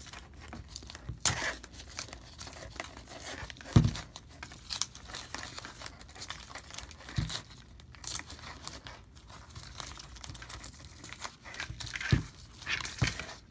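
Blue tape being peeled off faux-leather straps and balled up: a continuous crackling, tearing noise, with a few dull knocks as the mask is bumped on the cutting mat, about four, seven and twelve seconds in.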